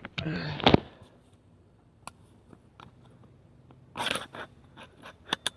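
Scattered sharp metal clicks and knocks, with a short scrape about four seconds in and two quick clicks near the end, from a steel breaker bar being handled and adjusted.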